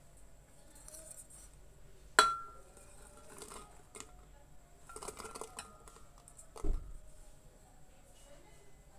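Red chilies and garlic cloves being put into an empty blender jar: a sharp clink with a brief ring about two seconds in, a light rattle of handling, and a dull knock about two thirds of the way through.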